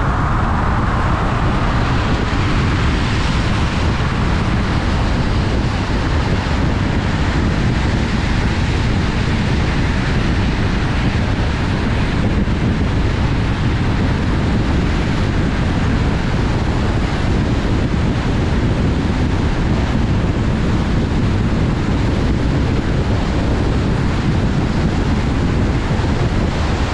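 Steady road noise inside a car cruising at highway speed on wet pavement: the tyres hissing on the wet road, wind over the car, and a deep rumble underneath.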